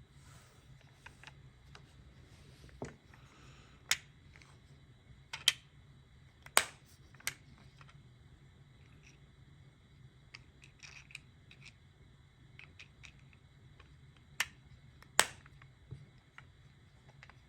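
Sharp, irregular clicks and taps of small hard objects being handled, about a dozen, with the loudest around five, six and a half and fifteen seconds in, over a faint steady hum.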